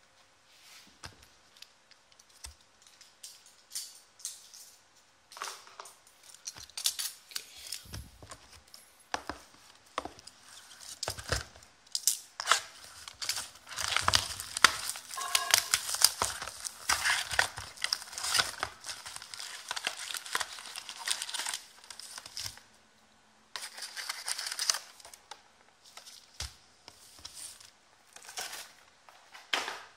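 Hands unwrapping and tearing open a sealed trading-card box: packaging torn and crinkled, cardboard flaps handled, and foil card packs rustling. It begins as scattered clicks and rustles, then becomes a long stretch of tearing and crinkling about halfway through.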